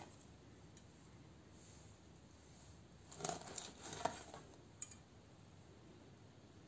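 Kitchen knife slicing through a lightly salted whitefish fillet and its skin onto a cutting board: a few soft cutting sounds about three to four and a half seconds in, then a sharp tap of the blade just before five seconds, with quiet room tone otherwise.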